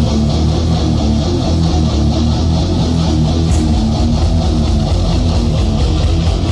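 A live rock band playing loud electric guitar chords over a bass guitar, opening a song. The bass comes in just as the passage begins.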